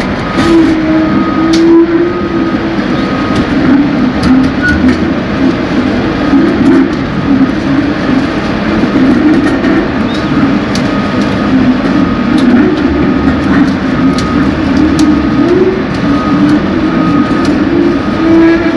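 Heavy machinery running with a loud, steady, wavering drone and scattered clanks and knocks, while a warning beeper sounds a short high beep about once a second.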